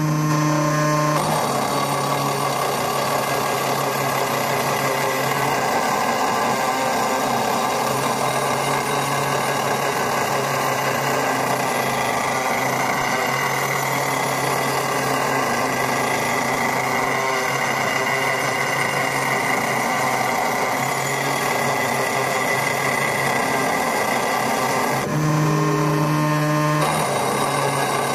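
CNC stone engraving machine's spindle running a burr that grinds lettering into black granite: a steady grinding noise over a constant motor hum. The low hum stands out more for a couple of seconds near the end.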